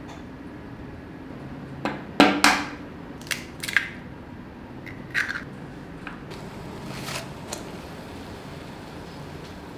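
An egg cracked and its shell pulled apart over a small glass bowl: a run of sharp clicks and crackles, loudest about two seconds in, then a few lighter clicks later on.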